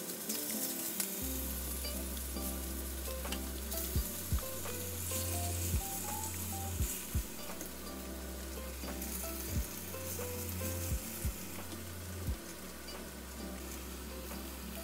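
Flour-dusted pork slices sizzling in hot oil in a frying pan as they are laid in, a steady hiss, with a few sharp clicks along the way.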